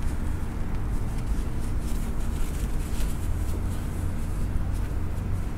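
Paper towel dabbing and rustling against sous vide cooked steaks as they are patted dry, heard as faint soft rustles over a steady low rumble of background machinery.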